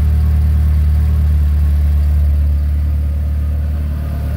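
Volkswagen Golf Mk4's 1.8-litre turbocharged four-cylinder (AGU) engine idling with a steady low hum.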